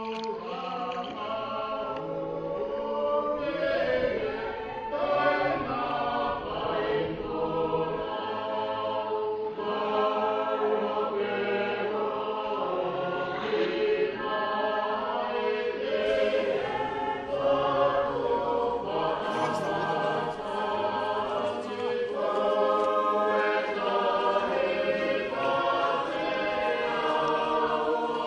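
A choir singing in harmony, many voices holding and moving between sustained notes.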